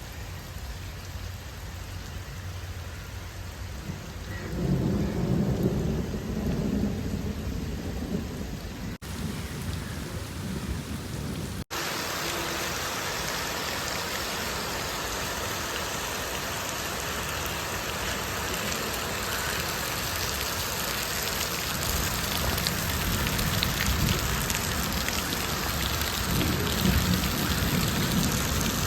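Heavy rain pouring steadily, with low rumbles of thunder about five seconds in and again near the end. There is a brief break about twelve seconds in, after which the rain is louder and hissier.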